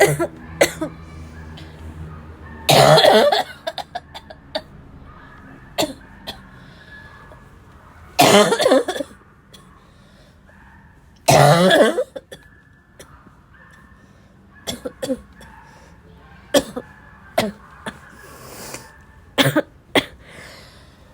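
A person's barking cough: three long, loud coughing bouts in the first half, then a scatter of short single coughs.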